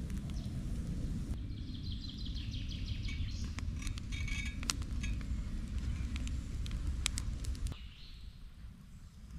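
Small birds chirping in woodland, with a few sharp snaps from a burning wood campfire, over a low steady rumble that drops away near the end.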